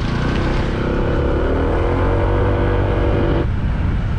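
Motor scooter on the move, wind rumbling steadily on the microphone, with an engine note rising gently in pitch. The engine note cuts off abruptly about three and a half seconds in.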